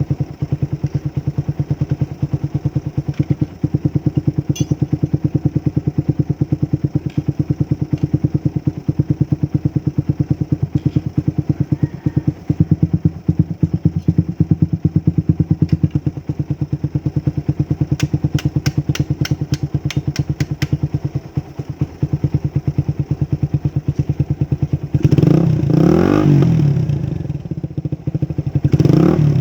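Motorcycle engine idling through an Akrapovic 51 mm big-elbow exhaust with a dB killer fitted, a steady even putt. Near the end the throttle is blipped twice, the pitch rising and falling each time.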